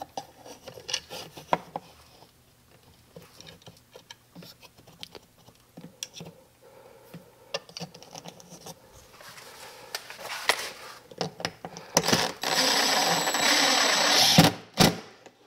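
Light taps and clicks of a level and a plastic wall mount being handled against a wooden wall, then a DeWalt cordless drill driving a drywall screw into the OSB for about two seconds near the end, stopping suddenly.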